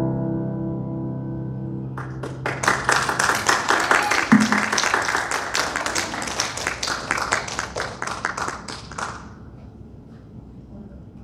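The last chord of an acoustic guitar and electric keyboard duet rings out and fades, then applause starts about two seconds in and lasts about seven seconds. A single dull knock comes about four seconds in.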